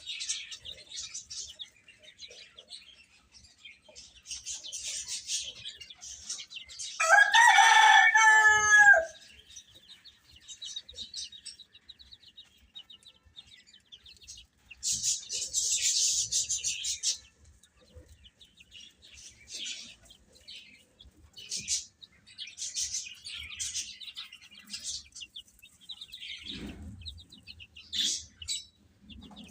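Baby chicks chirping in repeated high-pitched bursts throughout. A rooster crows once, loudly, about seven seconds in, a call of about two seconds.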